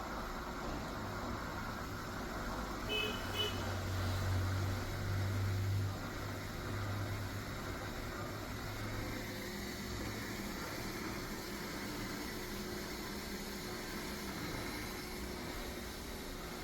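Single-serve coffee maker humming low for several seconds, with two short electronic beeps about three seconds in, over a steady hiss.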